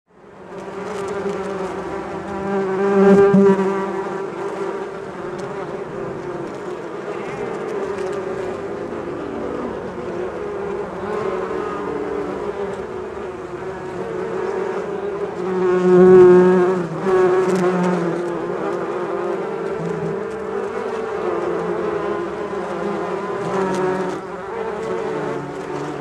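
A swarm of bees buzzing at a large hive: a dense, continuous hum that fades in at the start, with bees passing close and swelling louder about three seconds in and again around sixteen seconds.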